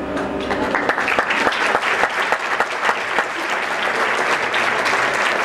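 Audience applauding, breaking out about half a second in as a held ringing tone dies away.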